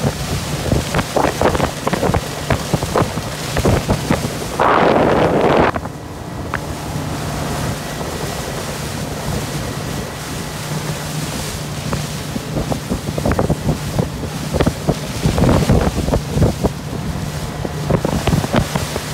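Motorboat engine running at low speed with a steady low hum, under wind buffeting the microphone and water sloshing by the hull. A loud rush of wind or water comes about five seconds in.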